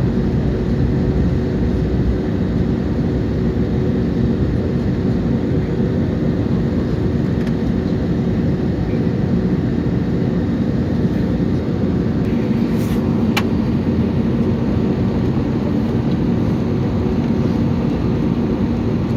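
Steady airliner cabin noise: the jet engines and airflow make a constant roar with a low hum. A short click about thirteen seconds in.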